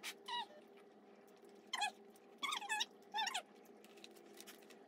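Four short, high-pitched whimpering squeaks, each bending in pitch, over faint scattered clicks.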